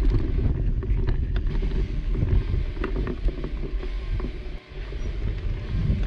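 Wind buffeting the microphone of a mountain bike on the move, a steady low rumble with scattered small clicks and rattles from the bike, briefly dropping away about four and a half seconds in.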